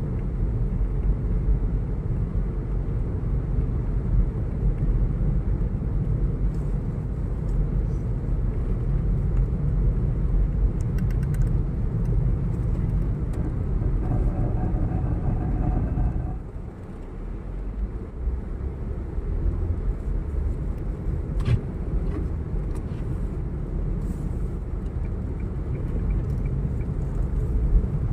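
Steady low rumble of a road vehicle in motion, heard while riding in it. It eases off briefly about two-thirds of the way through, with a faint whine just before, then builds back up.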